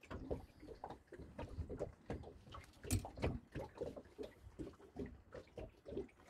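Irregular light knocks and rustling from handling fishing gear on a small boat, with one sharper knock about three seconds in.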